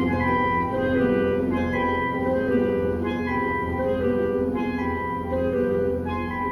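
Instrumental music played back through GR Research Super 7 open-baffle speakers: sustained melodic notes moving every half second or so over a steady low bass.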